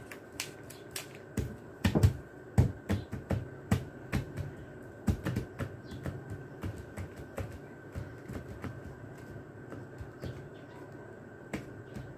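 Pencil and hands tapping and handling a paper sheet on a tile floor: a string of irregular sharp taps and clicks, most and loudest in the first half, thinning out later, over a faint steady high tone.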